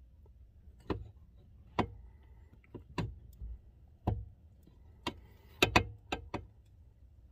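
Upper steering shaft being worked back and forth to line up its splines with the lower shaft: about ten sharp clicks and knocks at irregular spacing, bunched closer together toward the end.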